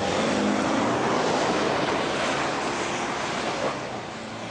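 A 4x4 SUV pushing through snow under power: a loud, continuous rush of spinning tyres and churned snow, with the engine running underneath.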